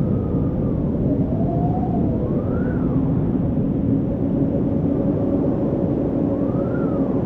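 Steady rush of a waterfall, water pouring and crashing without a break. Faint tones rise and fall above it about two and a half seconds in and again near the end.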